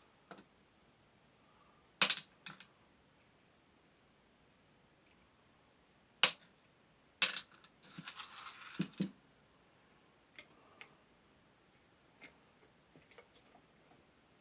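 Small metal fan parts and screws being handled on a workbench: a few sharp clicks and taps, a short scraping rasp about eight seconds in followed by two dull knocks, then faint ticks.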